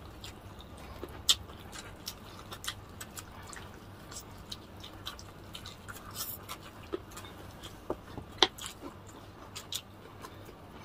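Close-miked mukbang eating sounds of two people chewing fried chicken: irregular wet mouth clicks and lip smacks, a few louder ones, over a faint low hum.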